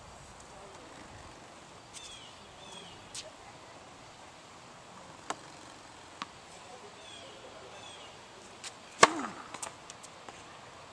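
A ProKennex Black Ace tennis racket strikes the ball on a serve about nine seconds in: one sharp, loud pop, followed by a few faint clicks. Earlier come two light taps of the ball bouncing on the hard court before the serve.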